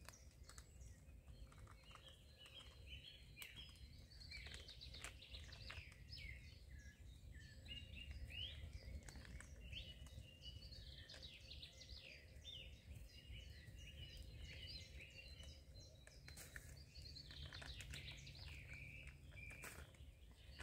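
Several songbirds chirping and trilling, many short calls overlapping, over a faint steady low rumble of outdoor noise. A few light clicks stand out now and then.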